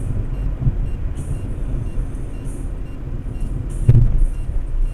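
Steady low rumble of a car's engine and road noise, with one sharp thump about four seconds in.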